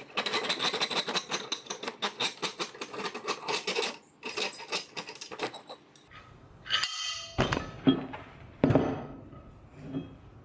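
Rapid, even metallic clicking as a part of an old vise is unscrewed with a hand tool, stopping about four seconds in and returning briefly. Then a few metal knocks and clinks as the loosened parts are handled and set down.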